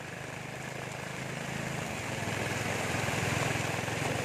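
Small motorcycle engine of a tricycle running with a fast low throb, growing slightly louder, under the steady hiss of heavy rain.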